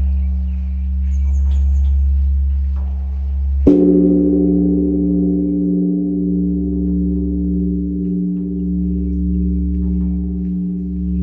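Large Korean bronze temple bell (beomjong) ringing with a deep hum that swells and fades in slow waves. It is struck again about four seconds in, and the new strike's ringing carries on.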